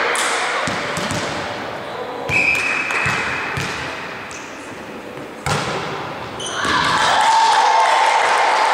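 Volleyball in an echoing sports hall: a few knocks of a ball on the wooden floor, a single whistle blast of about a second, then a sharp hit of the ball about halfway through, followed by players shouting as the rally starts.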